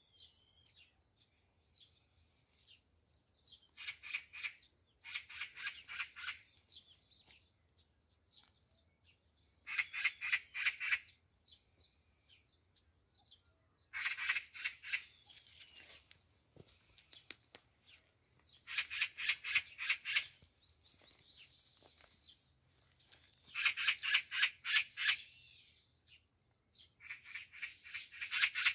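Oriental magpies giving their harsh, rattling alarm chatter in repeated bursts of fast 'kak-kak-kak' calls, each a second or two long, every few seconds. This is the scolding a magpie aims at a cat.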